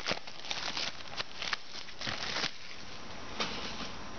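Trading card packs and their cardboard box being handled: irregular crinkling and rustling of foil wrappers and card stock, with a longer rustle about two seconds in.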